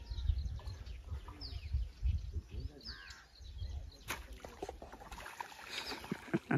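A bird calling repeatedly with short falling chirps, over a low rumble that drops away about five seconds in, with a few sharp clicks.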